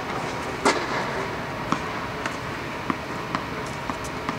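Tennis ball impacts on an indoor clay court. There is one sharp racket hit early on, then lighter knocks about every half second from the ball being bounced on the clay, over a steady background hiss.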